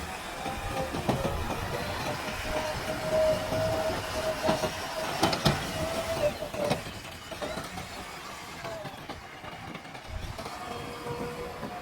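JCB backhoe loader working, its engine and hydraulics running with a steady whine and several sharp metallic knocks from about a second in to past the middle.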